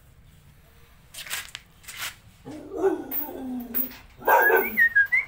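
An animal calling: two short hissy sounds, then wavering calls from about halfway that turn into a loud run of short, high-pitched cries near the end.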